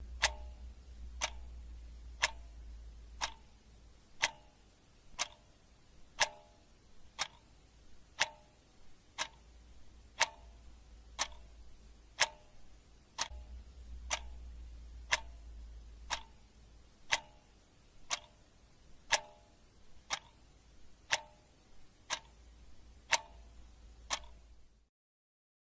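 Clock ticking steadily, one sharp tick each second, each with a brief metallic ring; the ticking stops abruptly near the end.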